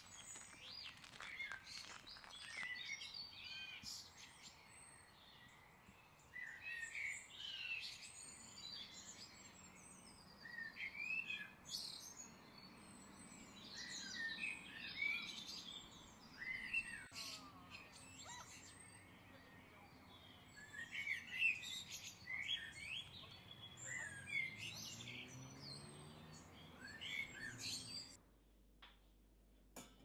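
Songbirds chirping and singing, many short calls overlapping over a steady low background hiss. Near the end the birdsong cuts off abruptly, leaving quiet room tone.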